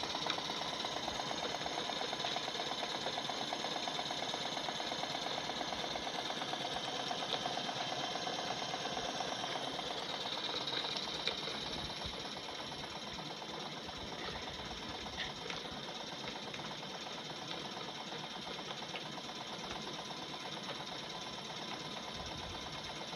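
Jensen Model 50 toy steam engine running steadily, with a fast, even beat of strokes and small mechanical clatter, its flywheel driving the dynamo that lights the bulb. Slightly quieter from about halfway through.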